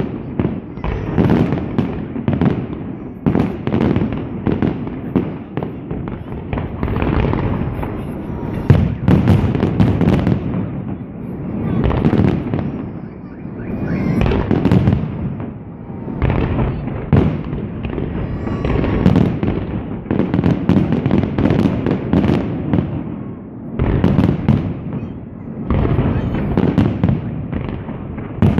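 Fireworks display: shells bursting in a near-continuous run of bangs, many in quick succession with hardly a pause.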